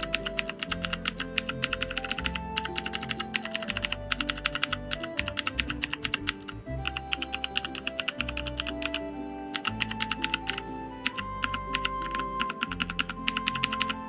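Fast typing on an E-Element tenkeyless mechanical keyboard whose WASD keys carry clicky blue switches and the rest brown switches: a dense, rapid clatter of key clicks, thinning briefly twice. Background music plays underneath.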